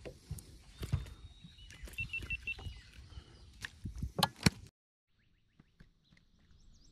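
Irregular knocks and clatter of gear being handled in a fishing boat over a low rumble, with a quick run of four short high beeps about two seconds in. A little before the end the sound drops away almost to nothing.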